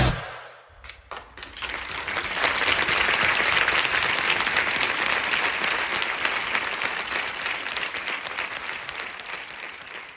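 Audience applause: after the dance music cuts off, clapping starts about a second in, swells to a steady peak and then slowly fades.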